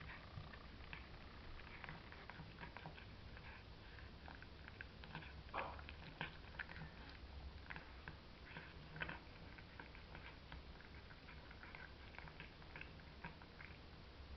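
Cat eating wet food from a plate: faint, irregular smacking and chewing clicks, with a couple of louder smacks midway.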